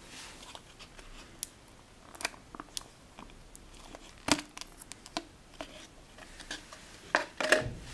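Plastic packaging tray handled as a phone is pried out of it: scattered clicks and crackles of plastic. One sharp click comes about four seconds in, and a louder cluster of crackles with a low thump comes near the end.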